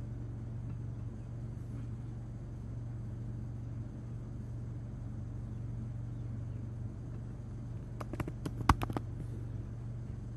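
Steady low background hum, with a quick run of computer keyboard keystrokes about eight seconds in, typing a search term.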